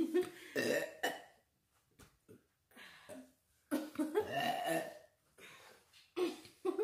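Children burping after drinking soda: several short burps at the start, one long drawn-out burp about four seconds in, and a couple more short ones near the end.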